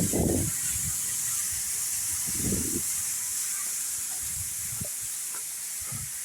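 Waterfall pouring: a steady high hiss of falling water. Brief low rumbles come at the start and about two and a half seconds in.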